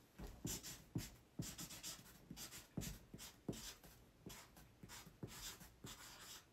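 Black marker writing on a cardboard box: a run of short scratching strokes, a few a second, as the letters are drawn.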